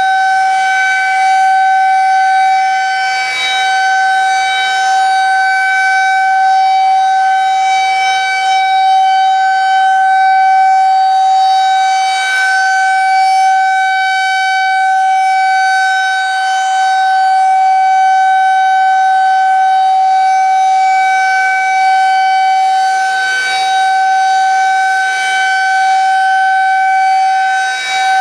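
Federal Signal 2001-SRN outdoor warning siren sounding a steady tone at full speed, the pitch holding level with no wind-down, while the loudness swells and dips slightly.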